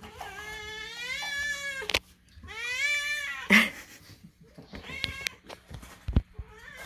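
Cats meowing loudly for food: two long, drawn-out meows, then a few shorter ones. A couple of sharp clicks and a low thump come near the end.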